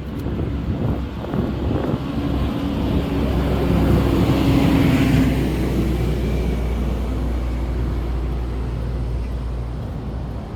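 City road traffic with a steady low rumble; a vehicle passes close by, loudest about four to five seconds in, then fades.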